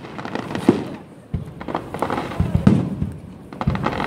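Aerial fireworks bursting: several sharp booms at uneven intervals, the loudest about two-thirds of the way through, with a rumble and crackle between them.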